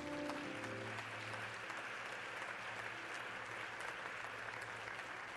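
A church congregation and choir applauding, a steady even clapping that holds through the whole stretch.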